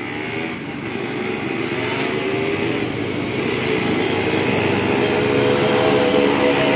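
A motor vehicle's engine passing close by, growing steadily louder and peaking near the end.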